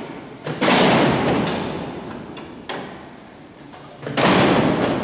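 Mechanical cell-door gear of the Alcatraz cellhouse being worked by its levers as each steel door is clutched and locked for closing: about four heavy metal clanks, the loudest about half a second in and near the end, each ringing on in the cellblock.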